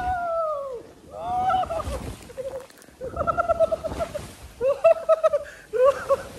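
A rider shrieking and laughing while going down a water slide in a tube: a long high cry that falls away within the first second, then repeated high-pitched bursts of laughter.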